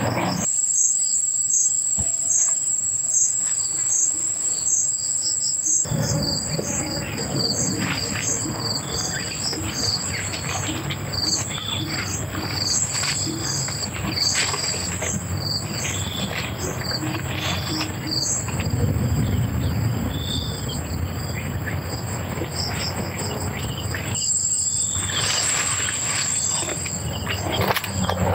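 Insects chirping: a high steady trill with regular pulsing chirps beneath it. From about six seconds in, a broad rustling noise joins them, drops away briefly near the end, then returns.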